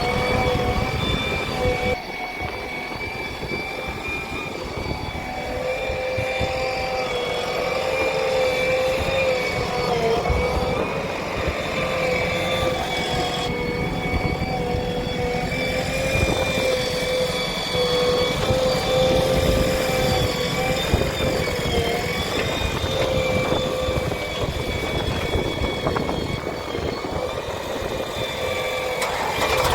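Heavy diesel earthmoving machinery running steadily under load, a rumbling engine with a steady high whine on top that wavers slightly in pitch.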